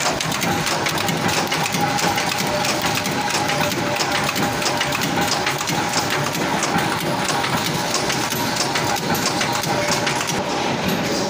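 Nut and bolt making machine running: a dense, rapid mechanical clatter over a steady hum.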